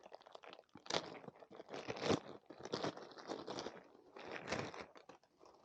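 Packaging being handled and opened by hand to get at a new handlebar bag: irregular rustles and crackles, a few louder ones about two seconds in and again after four seconds.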